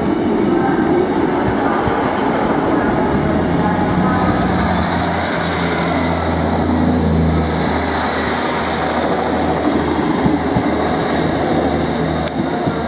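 Class 158 diesel multiple unit pulling out of the platform and running past close by, its underfloor diesel engines droning steadily under power, strongest a few seconds in. A single sharp click comes near the end.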